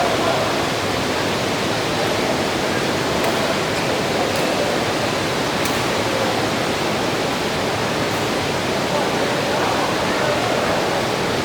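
Heavy rain falling, a loud steady hiss, with a few faint ticks of drops striking nearby.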